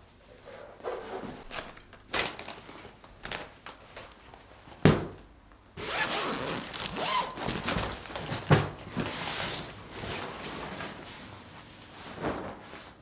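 Zip on a clear vinyl duvet storage bag being pulled open in rasping strokes, with the plastic crinkling as the bag is handled. Scattered light knocks of items being handled come first, and two sharp thumps stand out, one just before the zip and one during it.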